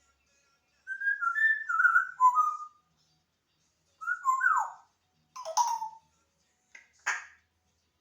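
African grey parrot whistling: a quick run of stepping, warbling notes lasting about two seconds, then a single whistle that slides downward, followed by a few short, harsh, noisy calls near the end.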